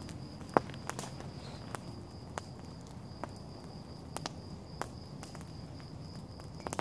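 Wood campfire crackling with sharp, irregular pops, one louder pop about half a second in, over a steady high-pitched trill of night insects.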